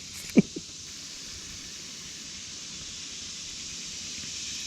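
Steady high-pitched hiss of a summer insect chorus that slowly grows louder, with a short knock about half a second in.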